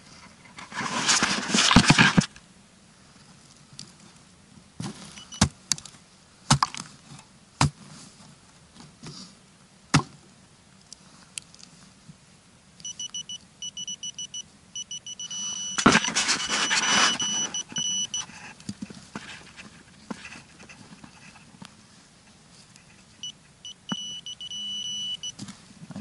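A handheld metal-detecting pinpointer probe sounds a high electronic tone in several stretches as it is pushed into the hole, signalling metal close by. Loud scraping and rustling of soil and roots being dug out by hand comes about a second in and again past the middle, with a few sharp knocks between.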